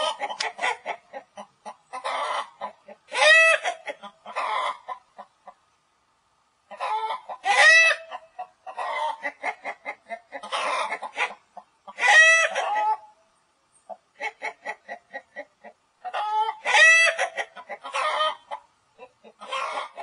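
Chickens clucking in rapid runs of short notes. Four times, a run builds into a louder, drawn-out squawking call, like a hen's cackle.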